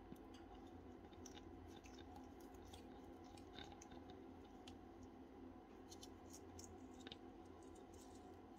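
Near silence: faint, irregular clicks and ticks of small metal gearbox parts being handled and fitted by hand, over a steady low hum.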